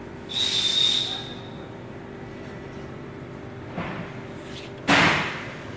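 A steady low hum with short bursts of hiss. The first comes about half a second in, carrying a high steady tone for about a second. A fainter one follows, then a louder one near the end.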